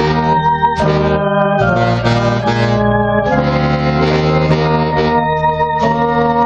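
Trumpet and baritone saxophone playing a slow hymn together in held notes, the saxophone carrying a low line under the trumpet melody.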